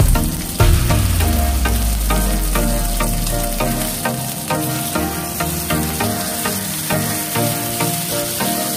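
Beef steak sizzling in hot oil in a cast-iron skillet, under background music with a steady beat.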